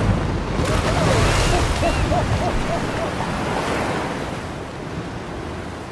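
Glacier ice calving: a section of the ice front collapsing and crashing into the sea with a loud, rushing roar of falling ice and churned water. It is loudest in the first couple of seconds and eases off after about four seconds.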